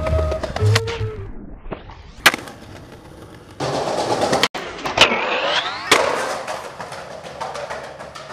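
Music cuts out about a second in, leaving raw skateboarding sound. The board snaps sharply several times, and a loud stretch of wheels rolling and grinding carries a rising screech in the middle. It all fades away near the end.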